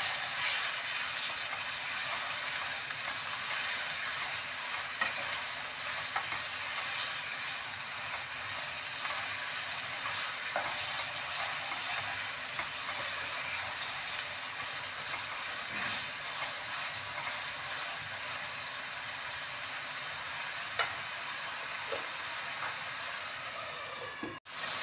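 Boneless marinated chicken sizzling in oil in a kadai over a low flame, with a wooden spatula stirring and scraping the pieces.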